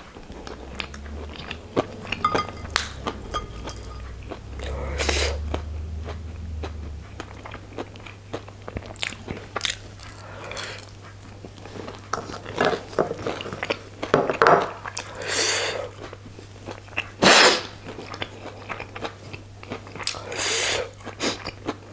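Close-miked chewing and biting of crispy fried onion pakoda (onion bhaji) fritters: crunchy bites and wet mouth sounds coming in irregular bursts.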